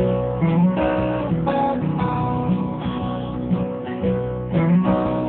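Background music: an acoustic guitar strumming an instrumental break between verses of a children's song, with no singing.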